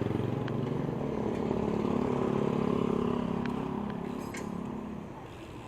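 A motor vehicle's engine passing close by: its hum swells to a peak about two to three seconds in and fades away by about five seconds, over steady traffic noise.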